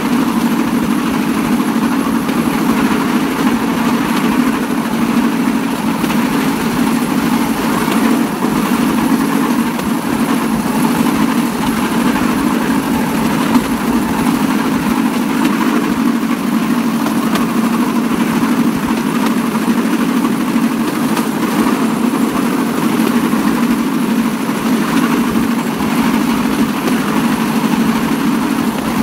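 Bamboo train (norry) rolling along the rails, its small engine running with a steady drone.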